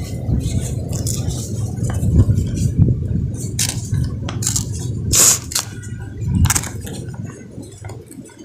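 Sheet of book paper rustling and crinkling as it is handled and folded, with many short crisp crackles and a louder one about five seconds in, over a low handling rumble.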